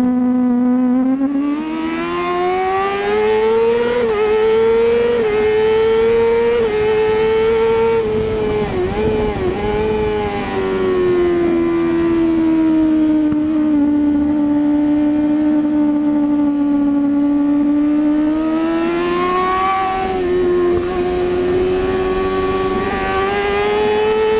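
Kawasaki ZX-6R 636's inline-four engine at racing speed, heard from on board the bike. Its pitch climbs under acceleration over the first few seconds, dips and wavers about a third of the way through, holds a steady note for several seconds, then climbs again near the end.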